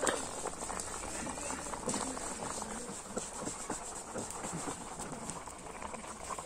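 A pot of thin curry gravy bubbling at the boil, with a steady crackle of small pops and clicks.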